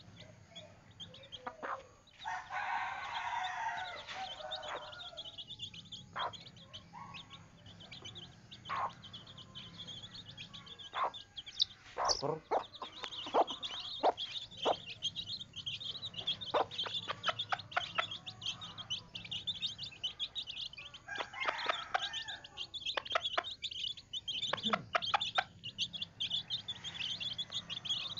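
Free-range chickens clucking, with a steady high chirping over them and many short, sharp clicks scattered through. Bouts of clucking come about two seconds in and again past twenty seconds.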